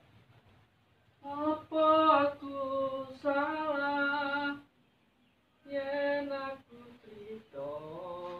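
A woman's singing voice, several sung phrases with long held notes.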